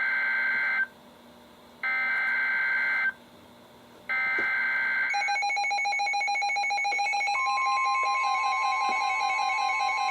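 Three bursts of NOAA Weather Radio SAME header data, a harsh two-tone digital screech about a second long each, marking the start of a new alert. Right after them, several weather radio receivers set off their alert alarms together in a mix of pulsing beeps and warbles, and a steady tone joins about two seconds later.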